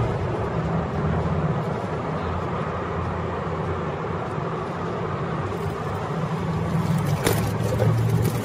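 Street traffic at a city intersection: a steady mix of car engine and road noise. A single sharp click comes about seven seconds in.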